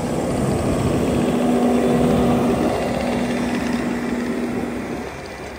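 Bobcat T870 compact track loader running with its hydraulic Coneteks 2.13M ground-grinding attachment: a steady engine hum that holds one pitch, easing a little near the end.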